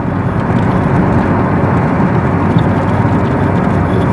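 Steady road noise inside the cabin of a Toyota Corolla driving along a motorway: an even rumble of tyres and engine without any sudden events.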